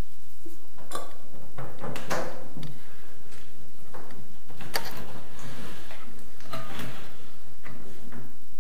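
Irregular knocks, clicks and scrapes from a washing machine's inlet hose and its blue plastic union nut being handled and screwed onto a water supply fitting.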